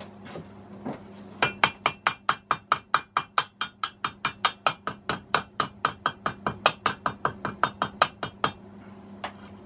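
A hammer rapidly tapping a steel tube, about five blows a second for around seven seconds, to drive a shielded ball bearing down into its seat in a washing machine motor hub. Two lighter taps near the end.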